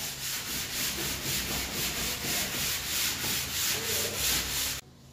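Sanding sponge rubbed by hand over the dried joint compound on the edge of a plasterboard access panel: quick, even back-and-forth sanding strokes that stop abruptly near the end.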